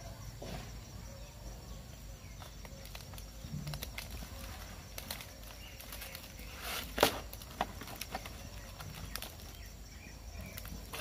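Green leaves being handled and rustled in a woven basket, with scattered light clicks and one sharp knock about seven seconds in, over a steady low rumble.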